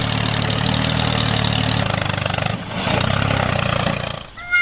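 Tractor engine running steadily with a low, even throb. It dips briefly about two and a half seconds in and cuts off near the end.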